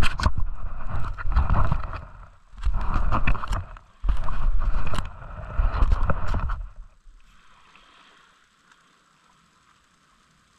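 Wind gusting over the microphone in irregular, deep rumbling blasts with a few sharp ticks, dying away to a faint hiss about seven seconds in.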